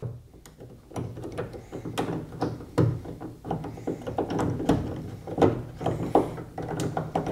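Hands working parts inside a 2000 Chevy Silverado door: a string of irregular clicks and knocks with rubbing between them as the rubber window run seal and glass are twisted and pushed into place in the metal door shell, over a low steady hum.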